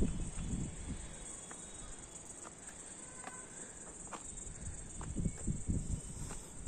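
Insects keep up a steady, high-pitched drone in the dry heat of a rocky hillside. Low thumps come through near the start and again after about five seconds.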